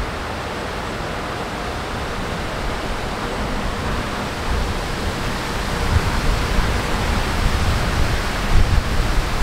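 Gusty wind blowing over the microphone: a steady rushing hiss with low rumbling buffets that grow stronger about halfway through.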